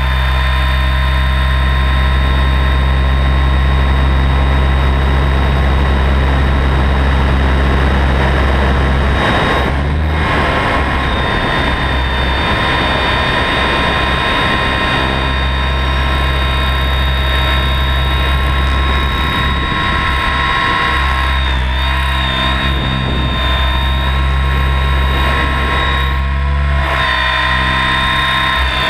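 Onboard sound of a 700-size electric RC helicopter in flight, its main rotor spinning at about 1800 rpm: a steady rotor drone with a high whine from the Kontronik Pyro 700 brushless motor and drivetrain. The drone breaks up and shifts briefly about a third of the way in, and twice more near the end, as the helicopter manoeuvres.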